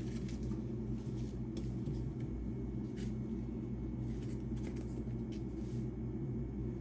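Faint, scattered light clicks and rattles of small driver bits being handled while picking one for a Torx screw, over a steady low hum.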